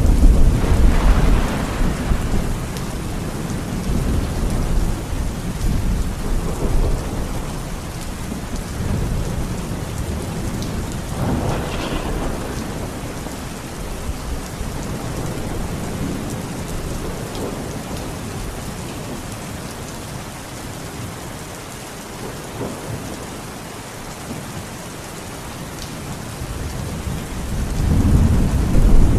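Heavy rain falling steadily with rolling thunder: a loud rumble at the start, a sharper thunderclap about eleven seconds in, and another rumble building near the end.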